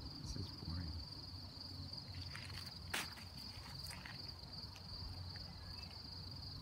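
Insects trilling steadily at a high pitch, with a few faint short noises and one sharp click about three seconds in.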